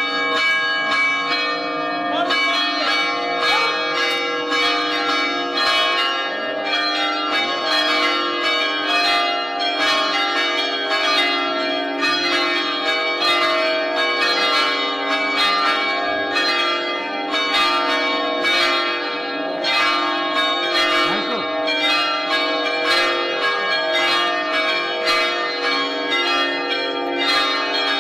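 Several church bells pealing together for a wedding, struck in quick succession so their ringing tones overlap in a continuous clangour.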